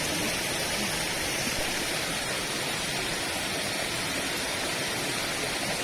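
Otome Falls, a waterfall, running with a steady, even rush of falling water.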